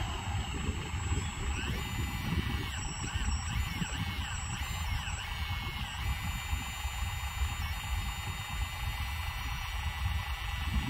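High whine of the 1/16 Case 688 RC excavator's hydraulic pump as the arm and bucket work, its pitch dipping in short arcs for the first few seconds as it loads up, then holding steady, over a low rumbling noise.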